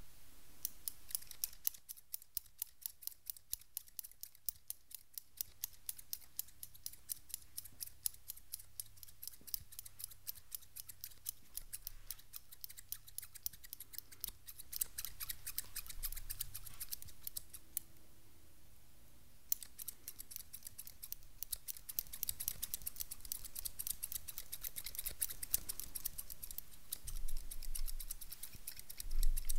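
Barber scissors snipping very fast right at the microphone, a rapid run of crisp blade clicks. There is a brief pause past the middle, and then the snipping resumes more densely.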